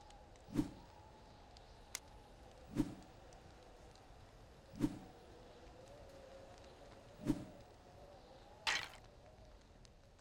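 Cartoon fight sound effects: four dull thumps spaced about two seconds apart, then a brief hissing swish near the end, over a faint wavering hum.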